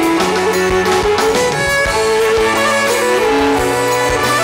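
Black Sea kemençe bowed in a fast, ornamented folk melody, backed by a band with a regular drum beat and a sustained low bass line.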